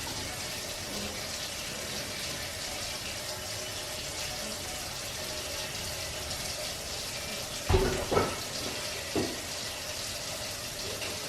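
Water running steadily from a tap into a sink, with a few short, louder sounds about eight and nine seconds in.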